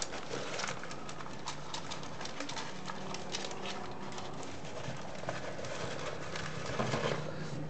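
Rustling and crinkling of a rolled diamond-painting canvas and its clear plastic film as it is handled and rolled up, with many small clicks and taps.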